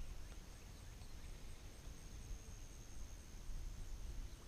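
Quiet lakeside ambience: a faint, steady, high-pitched insect drone over a low rumble.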